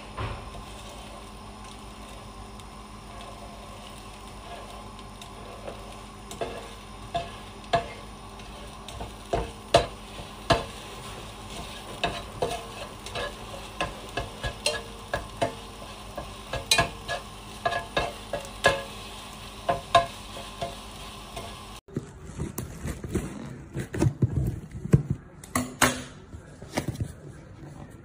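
Beaten eggs sizzling in a Thermos KFH-series non-stick frying pan while a spatula stirs and scrapes them, with frequent sharp taps of the spatula against the pan. About 22 seconds in the sound cuts suddenly to cardboard packaging being handled, with knocks and rustling.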